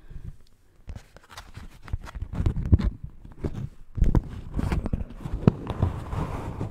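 Beeswax-coated cotton food wrap handled close to a microphone: tapped with long fingernails, then crinkled and rubbed, giving irregular sticky crackles and dull thumps. The sounds grow busier and louder from about two seconds in.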